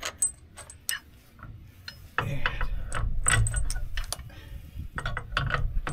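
Metal clicks and knocks of steering stabilizer mounting hardware being handled and fitted to its bracket, with a louder stretch of knocking and rubbing from about two seconds in to past four seconds.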